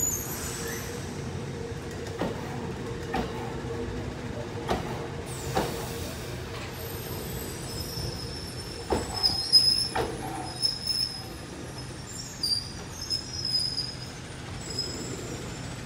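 Loaded bogie hopper wagons of a stone train rolling slowly past, their wheels clicking and knocking over rail joints at irregular intervals, with short high-pitched wheel squeals in the second half, the loudest about nine to ten seconds in.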